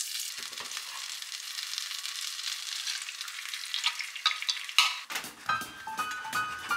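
Melted butter sizzling in a nonstick frying pan. About four seconds in, beaten egg is poured in and chopsticks stir it fast, clicking and scraping against the pan over the sizzle.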